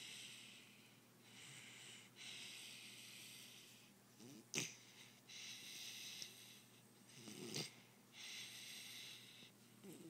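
Blue Doberman snoring in its sleep: soft, wheezy hissing breaths every few seconds, broken twice by a short, sharp snort, about halfway through and again near three quarters of the way.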